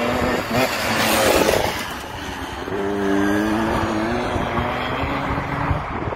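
125cc KTM dirt bike engine revving hard as the bike passes close and rides away, loudest about a second in as it goes by. Its pitch climbs, drops at a gear change about four seconds in, then climbs again.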